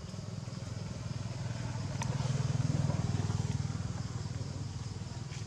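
A motorcycle engine passing by, swelling to its loudest midway and then fading away, over a steady high drone of insects.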